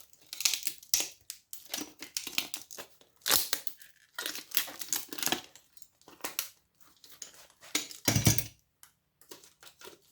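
Components being pried and broken off an electronic circuit board: irregular cracking, scraping and clicking, with a heavier knock about eight seconds in.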